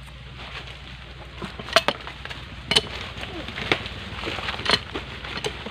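Adjustable wrench clinking against a metal pipe fitting on a jet pump as the fitting is turned, four sharp clinks about a second apart.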